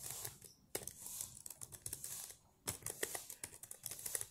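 Keys of a Samsung laptop keyboard being pressed in irregular clicks, one louder than the rest about two and a half seconds in.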